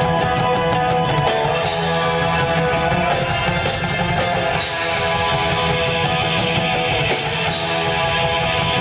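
Rock band playing live: loud, heavy music with electric guitar, steady throughout, with a bright high wash returning every two to three seconds.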